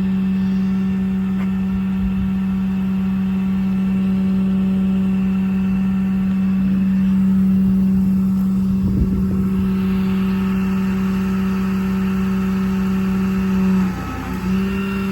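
Ram 5500 service truck's 6.7 Cummins diesel running at raised idle to drive its PTO hydraulics, a steady, even-pitched hum that dips briefly near the end.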